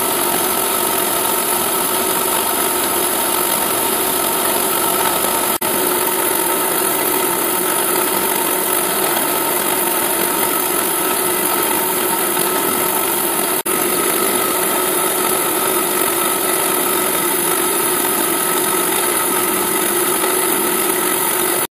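CNC milling machine running steadily, its slow-turning spindle driving a 0.2 mm engraving bit through the copper of a PCB blank: an even mechanical hum with a few steady tones. It breaks off for an instant twice, about six and fourteen seconds in.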